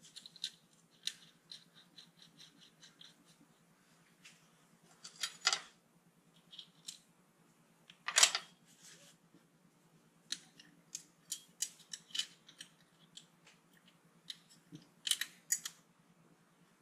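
Scattered small metallic clicks and taps of the fasteners being handled and fitted by hand on a Land Rover Series engine's rocker cover, with a short run of light, even ticks about a second in and a few louder clicks spread through.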